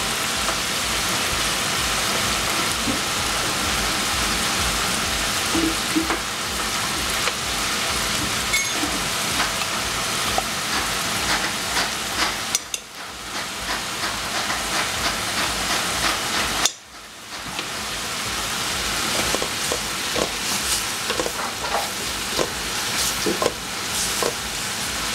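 Prawns, pepper strips and tomato sauce sizzling steadily in a stainless steel pot; the sizzle drops out briefly twice about halfway. In the last few seconds a spatula stirs the food, scraping and clicking against the pot.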